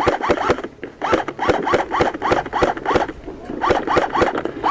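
Airsoft electric rifle firing rapid single shots in several strings with short pauses between them, about five shots a second; each shot is a quick motor whir that rises and falls in pitch, ending in a click.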